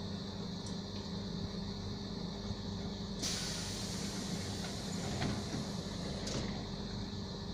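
ED4M electric train at a standstill with a steady electrical hum from its on-board equipment; about three seconds in, a loud hiss of compressed air starts suddenly, lasts about three seconds and ends with a click.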